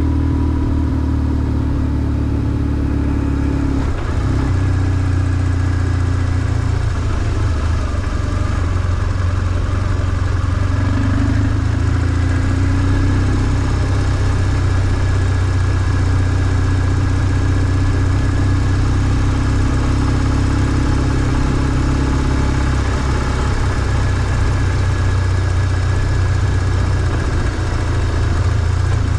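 BMW R1150GS motorcycle's boxer twin engine running steadily, its pitch nearly constant.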